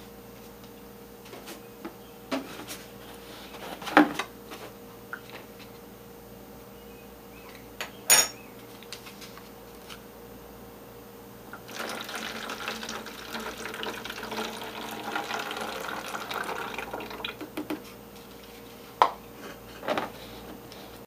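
Leftover milk poured from a plastic cereal bowl into a plastic gallon milk jug for about six seconds, after a few sharp knocks of the bowl and spoon; near the end, clicks as the jug's plastic cap is twisted on.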